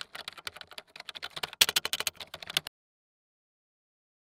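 Keyboard typing sound effect: a rapid run of key clicks that stops about two and a half seconds in.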